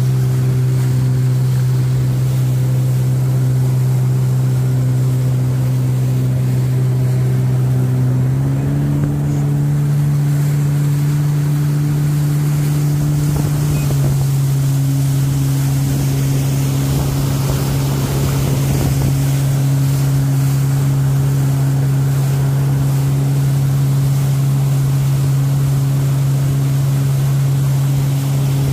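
Jet ski engine running steadily at cruising speed, its pitch stepping up slightly about eight seconds in and settling back down about six seconds later.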